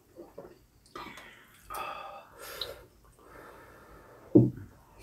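Eating sounds at a table: slurping and sucking of glass noodles and broth, in a few short bursts, with a dull thump about four seconds in as the loudest sound.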